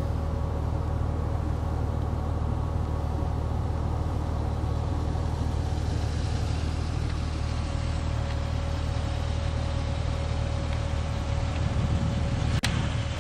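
Jeep engine idling steadily, a low even rumble. One sharp click near the end.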